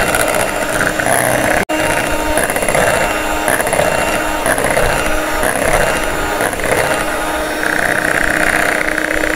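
Handheld electric mixer running steadily, its beaters whipping cream in a glass bowl until it thickens. The sound breaks off for an instant a little under two seconds in.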